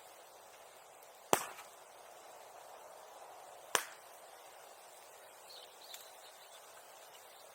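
Two sharp, loud pops from burning wood in a bonfire, about two and a half seconds apart, each with a short crackling tail, over a faint steady background.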